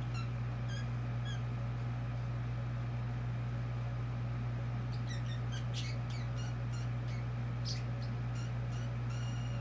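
Budgerigar chattering: scattered short high chirps and clicks, sparse after the first second and busier from about halfway through. A steady low hum runs underneath and is louder than the bird.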